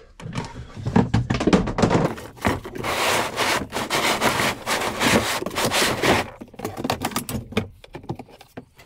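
Metal parts of an outboard's propeller shaft scraping, rubbing and clicking as the thrust washer is worked off for greasing. The scraping is heaviest midway and thins to scattered clicks near the end.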